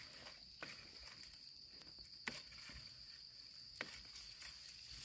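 Faint steady high-pitched drone of insects in grassland, with three soft sharp clicks about half a second, two and a quarter, and nearly four seconds in.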